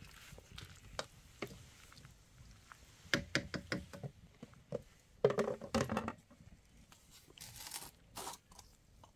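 Irregular knocks and clicks of objects being handled, with a quick run of clicks about three seconds in and a louder, busier bout of knocking a couple of seconds later.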